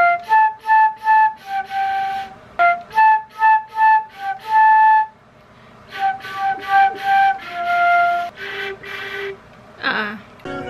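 Concert flute played solo: a run of short, separate notes in three phrases with brief pauses between them, each note with an airy, breathy edge.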